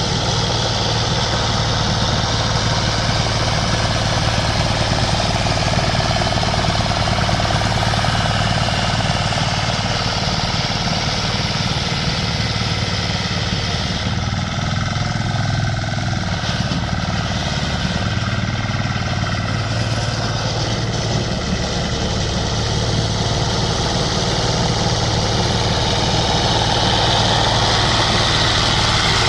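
Diesel engine of a power lawn mower running steadily.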